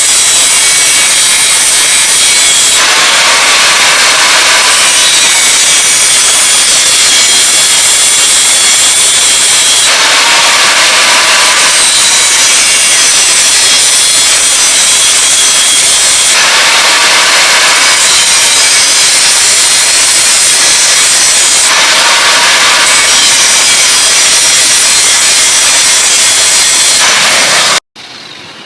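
Loud, continuous rasping of steel being abraded on a knife blade, starting and stopping suddenly, its tone shifting every few seconds.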